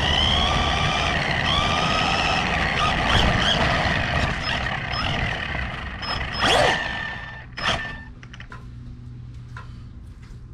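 Brushless electric motor of a 1/16-scale RC truck whining under throttle, its pitch rising and falling, over tyre noise on wet pavement. Past the middle come two sharp knocks about a second apart as the truck hits something, and then the motor goes quiet.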